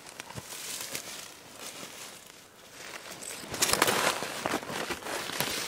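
Footsteps crunching and rustling through dry fallen oak leaves, quieter about two seconds in, then a louder stretch of crunching just before four seconds in.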